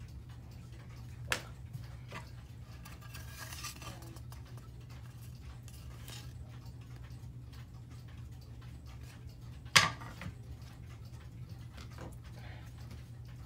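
Howard Miller 613-303 clock's pendulum movement ticking steadily, over a steady low hum. Its loose wooden back panel is handled, with a short rustle a few seconds in, a click early on and one sharp knock about ten seconds in, the loudest sound.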